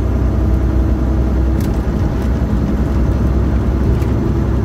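Steady low drone of a Volvo VNL860 semi truck's engine and tyres cruising at highway speed, heard from inside the cab. Two faint clicks come through, one about a second and a half in and one near the end.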